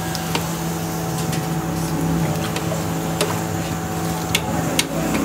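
Steady mechanical hum with scattered sharp metal clinks as a slotted steel skimmer works in a large steel pot of braised lamb and broth, lifting out meat with broth running off it.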